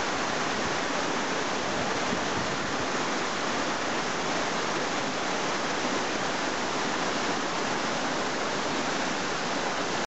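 Steady, unbroken rush of a tall waterfall, about 30 m high and 4 m wide, plunging into its pool, with water also splashing over boulders in the foreground.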